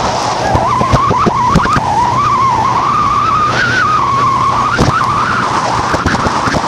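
Motorboat running under way, its engine note wavering up and down with a steady low hum beneath, over rushing noise, with scattered short thumps.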